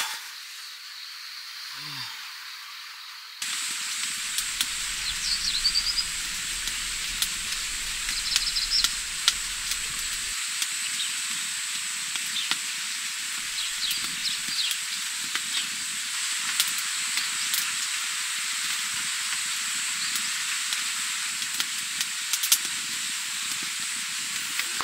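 Steady outdoor hiss with scattered sharp ticks and a few short high chirps, getting suddenly louder about three seconds in.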